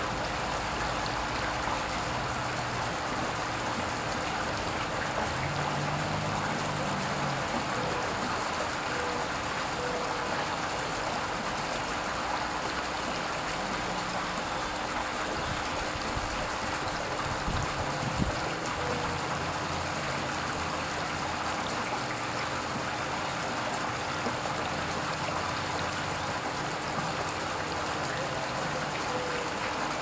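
Garden fountain's water trickling and splashing steadily off the rim of a statue's umbrella into the basin, with one brief knock a little past halfway.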